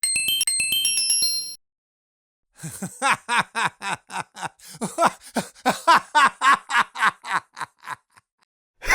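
A short sparkling chime jingle of stepping high notes. After a pause comes a man's laugh, a long run of rapid 'ha' pulses, about four a second, each dropping slightly in pitch; it stops before the end.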